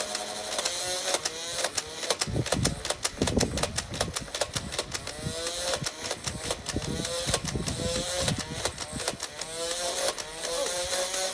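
Motorized Nerf blaster's flywheels whining, the pitch dipping and recovering again and again as darts are fired, with many sharp clicks of darts firing and hitting, thickest in the middle of the stretch.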